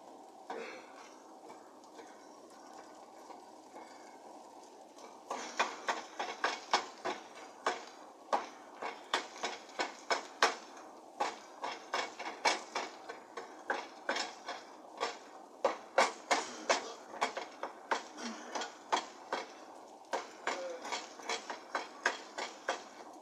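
A spoon clacking and scraping against a frying pan as chicken pieces are turned. A run of sharp knocks, about two to three a second, starts about five seconds in over a faint steady hiss.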